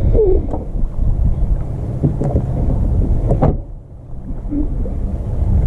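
Wind buffeting the microphone with a loud, uneven low rumble, with a few light clicks and knocks in between.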